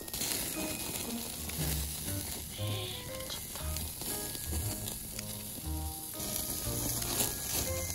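Hanwoo beef sirloin sizzling on a wire grill over hot charcoal while it is turned with tongs, with light background music playing.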